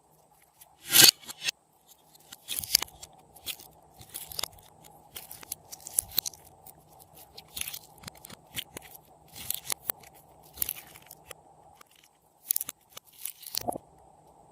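Slime being squeezed and stretched by hand, with irregular sticky crackles and pops, the loudest about a second in.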